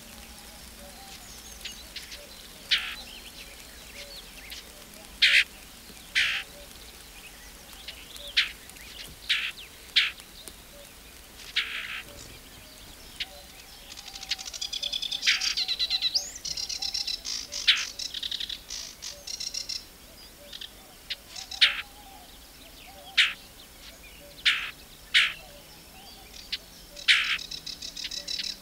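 Sedge warbler singing close to the microphone: a string of short, sharp notes every second or two, with a stretch of fast chattering about halfway through.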